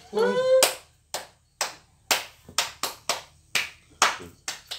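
Hand claps, roughly two a second and a little uneven, to call a puppy. Near the start a short rising high-pitched voice sounds over them.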